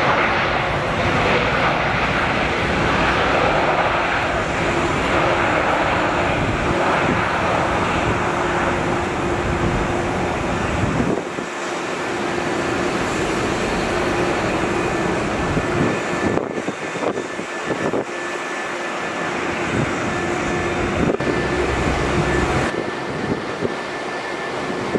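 Jet engines of a Boeing 787 Dreamliner at the runway: a steady rushing engine sound with a constant hum underneath. The sound changes abruptly a few times, and near the end a second Dreamliner is heard on its landing approach.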